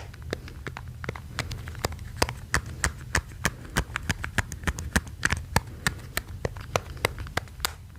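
Fingers tapping and clicking on a wireless headphones' plastic case as an ASMR trigger: quick, irregular sharp taps, several a second.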